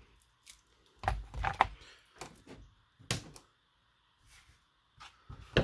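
Short plastic clicks and knocks from handling the Traxxas Slash 4x4 RC truck while it is powered up to test the new cooling fans: a cluster about a second in, a sharp click near the middle and another near the end.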